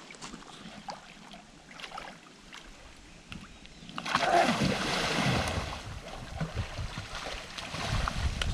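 Person in chest waders lunging through shin-deep river water to spear a gar: a sudden burst of splashing about four seconds in, then continued sloshing as he wades on.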